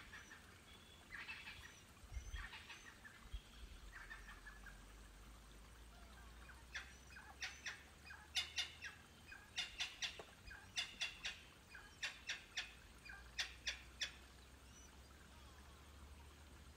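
Wild birds calling: a few chirping calls in the first seconds, then from about seven seconds in a run of sharp, clicking calls in quick groups of two or three for some seven seconds, faint overall.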